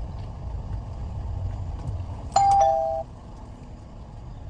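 A two-note electronic chime, a higher note then a lower one, sounds once about two and a half seconds in, over the low, steady hum of the car's engine.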